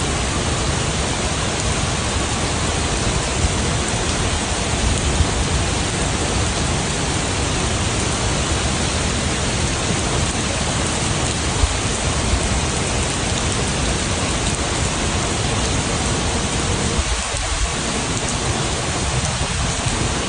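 Steady heavy rain falling: a dense, even hiss of drops, with a few slightly louder ticks here and there.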